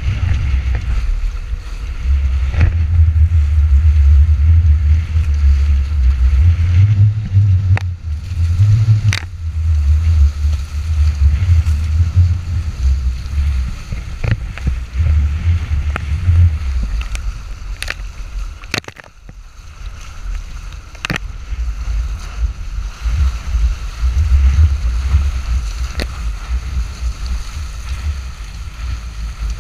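Strong wind buffeting the microphone in a gusty low rumble, over the rush and splash of water along the hulls of a Nacra 14 Square catamaran sailing fast. Scattered sharp ticks and knocks come through now and then.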